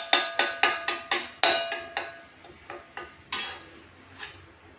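A steel spatula clinks and scrapes against a heavy-bottomed kadhai as grated carrots are stirred for gajar halwa. It makes a run of sharp metallic clinks, each ringing briefly, close together at first and spacing out after a second or two.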